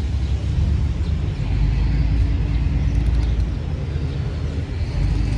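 Steady low rumble of street traffic, with a faint engine hum in the middle.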